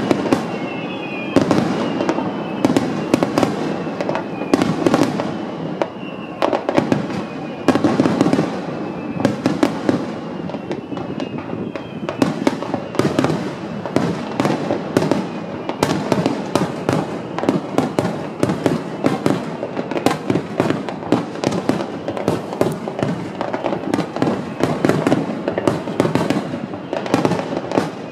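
Fireworks finale: aerial shells bursting in a dense, continuous barrage, bang after bang with crackling in between.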